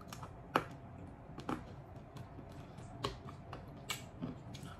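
Hard candy beads of a candy bracelet crunching and cracking between teeth as they are bitten off the wrist: about five sharp, separate cracks, a second or so apart.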